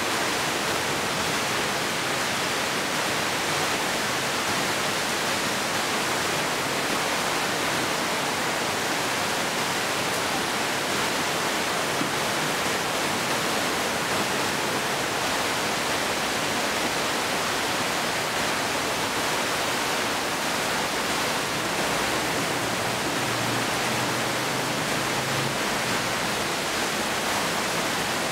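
Heavy monsoon downpour: a steady, dense hiss of rain falling on tiled roofs and trees.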